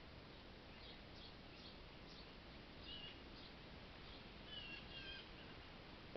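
Faint chirping of small birds over a steady background hiss, with a few clearer pitched calls about three seconds in and again near five seconds.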